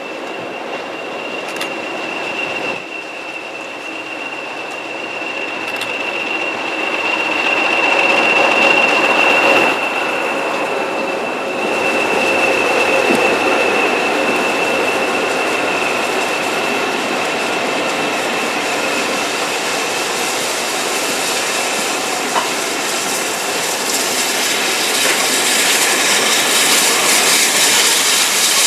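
A passing train: a Class 20 diesel locomotive leading a short rake of Mk1 coaches comes up and passes beneath, louder toward the peak about a third of the way in, with a steady high whine over the rolling of the coaches. Near the end the trailing BR Standard Class 4 steam locomotive passes, with a rising hiss.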